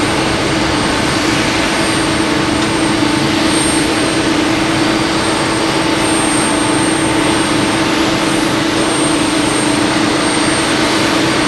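Boeing 777's twin jet engines at takeoff thrust as the airliner lifts off and climbs away: a steady, even rush of jet noise with a constant low hum running under it.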